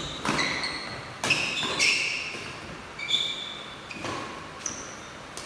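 A series of about six or seven sharp strikes at uneven intervals, each followed by a brief ringing ping, like hard objects knocking on metal.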